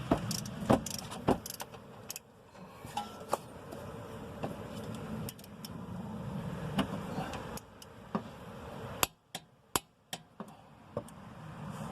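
Hand tools and metal parts clinking and knocking during work on a car's brake and hub: scattered sharp clicks over a low background noise, with a few close clicks about nine to ten seconds in.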